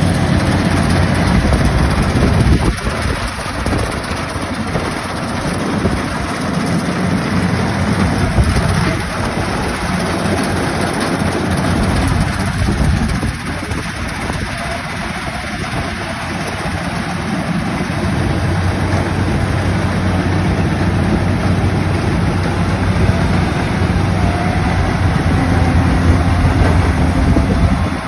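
An engine running steadily throughout, its low hum steadying and strengthening in the second half.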